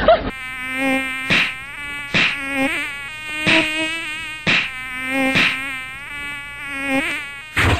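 Sound-effect housefly buzzing with a wavering pitch, swelling and fading as it flies about, broken by about seven sharp swats of a fly swatter.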